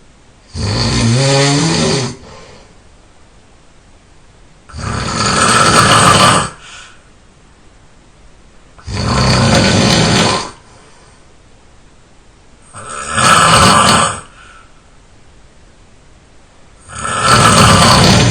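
A person snoring in sleep: five loud snores, each about one and a half to two seconds long, coming roughly every four seconds with quiet between them. The first snore has a wavering pitch.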